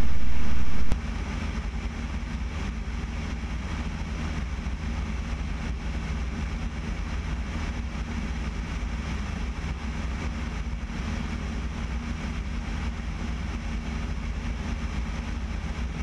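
Piper PA-28-180's four-cylinder Lycoming O-360 engine and propeller droning steadily in cruise, mixed with rushing wind, heard from outside the airframe at the tail. The sound is louder for about the first second, then holds steady.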